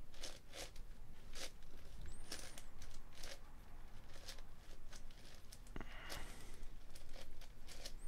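Plastic layers of a 10x10 puzzle cube being turned by hand: irregular rasping clicks and scrapes as slices are moved in and out to pair edge pieces.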